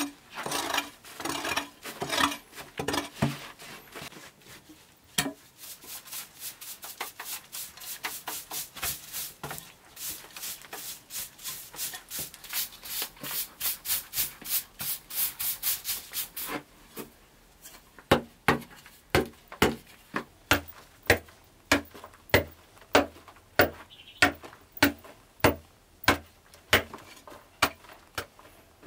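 Hand tools working packed earth in an underground dugout. First come uneven scrapes of a small hoe on the earth floor. Through the middle a flat wooden-handled tool makes fast, even scraping strokes. From past halfway there are steady chopping blows of a hoe into the earth, a little more than one a second.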